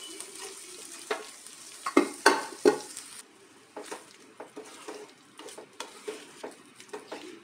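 Boiled arhar and moong dal being stirred into a sizzling masala in a nonstick kadhai with a slotted plastic spoon: the spoon scrapes and knocks against the pan over a frying sizzle. The sizzle stops about three seconds in, leaving softer scrapes.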